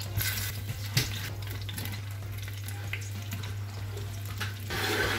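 Hot goose fat sizzling and spitting in a glass dish as raw potatoes are set into it, with a sharp knock about a second in and a louder burst of sizzling near the end.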